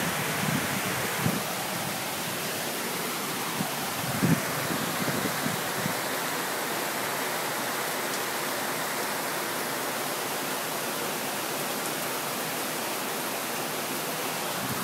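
Steady rushing of water: heavy monsoon rain together with a flood stream running through the garden. A few soft knocks about four seconds in.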